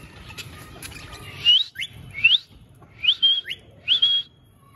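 Cockatiel whistling: a run of short rising whistle notes starting about a second and a half in, two of them ending in a brief held tone. The owner takes it as the bird calling him for attention.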